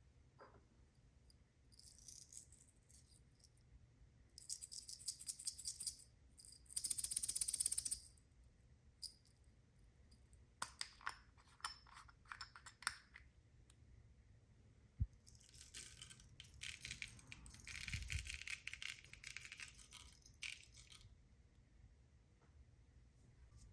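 Small hard pieces pouring and clattering into a container, in several separate bursts of one to five seconds.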